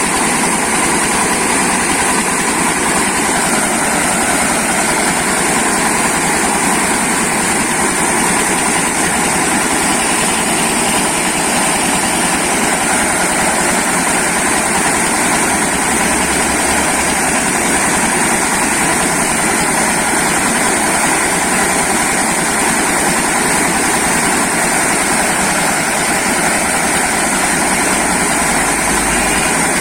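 Corn milling machine running steadily: a loud, unbroken mechanical din with a constant high hiss and no change in pace.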